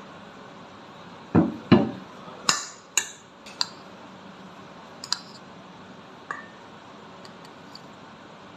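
A metal spoon knocking and clinking against ceramic dishes and a stainless-steel mixing bowl as food is scraped in. There are two dull knocks, then several sharp ringing clinks and a few lighter ticks.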